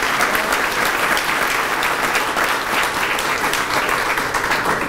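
Audience applauding steadily, thinning out at the very end.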